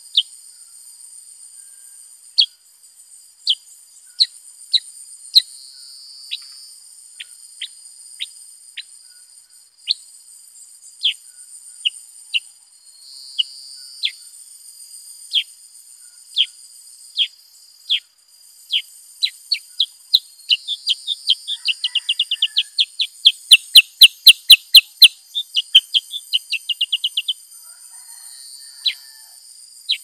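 Black-headed bulbul giving short, sharp chirps about a second apart, which speed up into a fast run of chirps about two-thirds of the way in; the loudest of them distort. A steady high-pitched insect drone runs behind.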